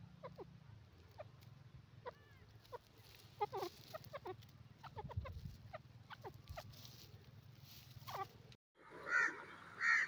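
Grey francolin giving a string of short, soft, downward-sliding call notes, a few each second, clustered around the middle. Near the end, after a brief dropout in the sound, come two much louder calls about a second apart.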